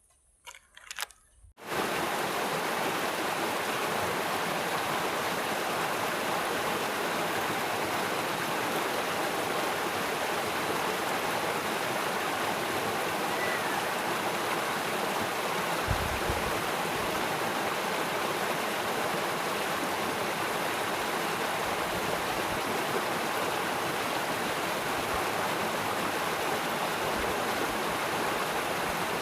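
Steady rush of flowing water, starting suddenly about two seconds in after a few faint clicks, with a brief low bump midway.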